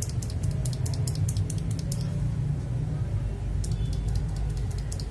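Gateron milky yellow mechanical keyboard switches being typed on in a quick run of clicks for about two seconds, then a pause, then more clicks near the end.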